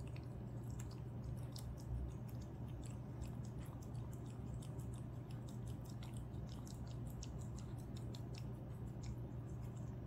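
A cat eating wet minced venison from a ceramic bowl: quick, irregular wet chewing and lapping clicks, over a steady low hum.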